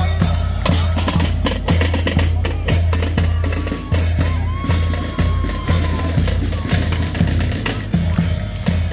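Parade marching drums playing a rapid beat, with many quick strikes over a deep, steady low rumble.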